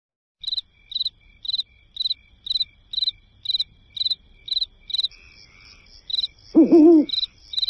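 Crickets chirping in a steady rhythm, about two chirps a second. Near the end comes one brief, lower pitched sound, louder than the chirps.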